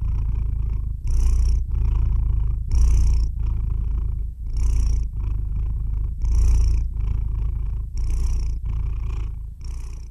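A domestic cat purring: a steady low purr that swells in a regular cycle about every one and a half to two seconds, with the cat's in and out breaths.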